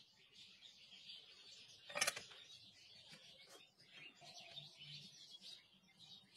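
Faint small handling sounds of wiring work at a bench, with one short, sharp crackle about two seconds in.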